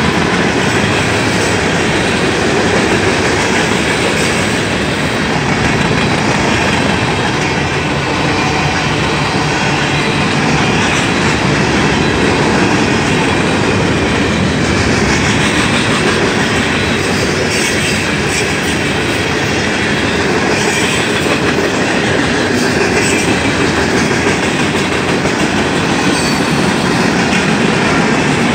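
Union Pacific mixed freight train's cars (gondolas, hoppers and a centerbeam flatcar) rolling past at close range: a loud, steady rumble of steel wheels on the rails.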